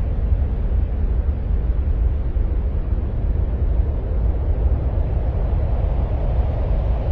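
Steady deep rumbling noise with a fainter hiss above it, unchanging throughout: an ambient space-noise track presented as the sound of Mars.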